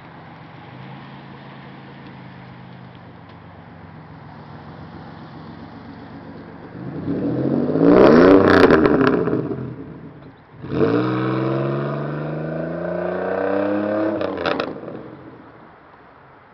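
Chevrolet Malibu's 3100 V6 running through a muffler-less exhaust (high-flow catalytic converter into a Y-pipe, slash-cut tips) as the car accelerates hard past and away. A faint drone builds, then the engine note climbs loudly about halfway through. It drops briefly and climbs again, then falls away sharply near the end as the throttle closes.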